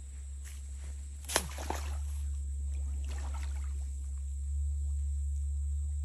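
Water splashing and sloshing as a man wading in a muddy stream handles and lifts a net, with one sharp splash about a second and a half in, over a steady low rumble.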